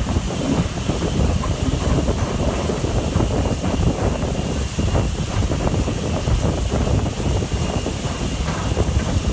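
S15 class steam locomotive working hard up a steep climb, heard from just behind it as a dense, steady mix of exhaust, steam hiss and running noise, with wind buffeting the microphone.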